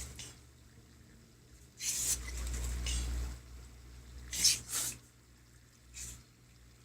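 Toy poodle in a bout of repeated sneezing: a longer burst about two seconds in, then two sharp sneezes in quick succession past four seconds, the loudest, and a faint one near the end.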